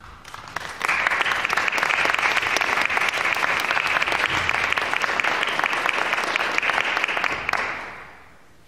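Audience applauding: many hands clapping. It swells about a second in, holds steady, and dies away near the end.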